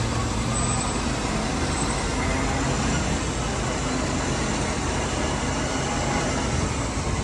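Tow truck's engine idling steadily: a low, even hum with a constant hiss over it.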